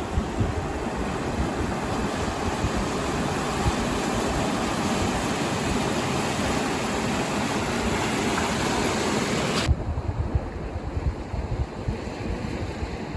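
Steady rush of ocean surf with wind on the microphone. About ten seconds in the hiss suddenly drops away, leaving gusty low wind buffeting.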